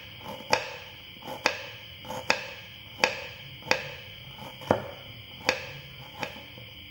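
Knife slicing red ginger thin: about eight sharp chops at an even pace, roughly one a second, with a steady high-pitched drone behind them.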